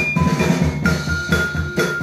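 Soul music playing from a vinyl record on a turntable, mixed through a DJ mixer: a steady drum beat under held melodic notes.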